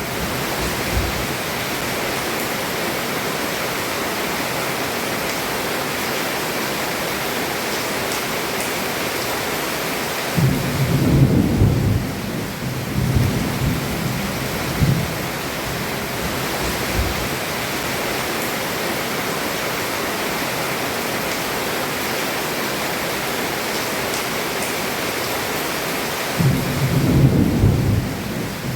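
Heavy rain falling steadily on a roof, with thunder rumbling low twice: a roll of several seconds about ten seconds in, and another near the end.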